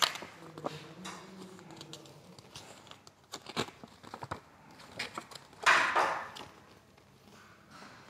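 Quiet room sounds: faint wavering voice-like tones at first, a few sharp clicks, and a brief rustle about six seconds in.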